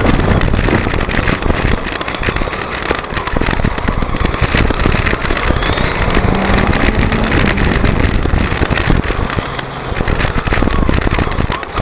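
Traxxas Telluride 4x4 RC truck driving over loose gravel, heard from its own on-board microphone. The electric motor and gears whine up and down with the throttle over a constant clatter and crunch of tyres on stones.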